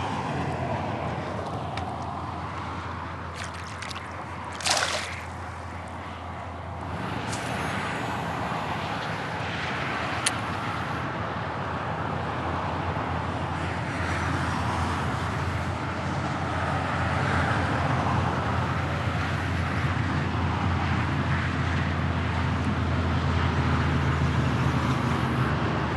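Steady road noise from interstate traffic, slowly growing louder, with light water sloshing and trickling near the kayak. A brief rush of noise comes about five seconds in.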